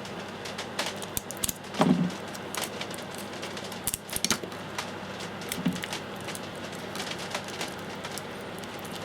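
Kapton tape and wires handled at close range: irregular small clicks and crackles of the tape being pulled, stuck and pressed around a wire joint, loudest about two seconds in and again around four seconds in.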